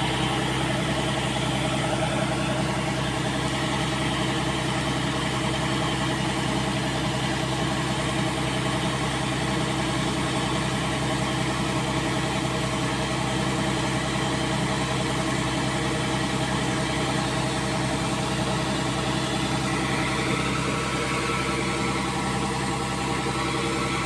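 Kubota DC-70 combine harvester running steadily while its unloading auger discharges rice grain into a truck bed: a constant engine drone with the whir of the auger over it.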